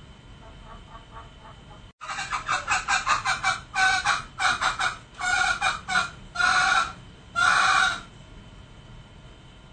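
Male green junglefowl calling: a few faint clucks, then from about two seconds in a fast run of sharp clucks that gives way to a handful of longer, louder calls.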